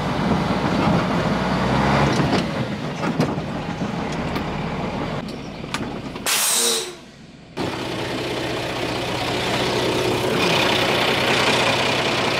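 A heavy vehicle engine running steadily. About six seconds in there is a short, loud hiss of the kind an air brake makes.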